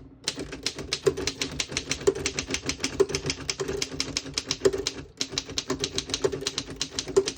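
A 1927 Underwood No.5 manual typewriter typing a sentence: a quick, steady run of key strikes, several a second, with a brief pause about two-thirds of the way through before the typing carries on.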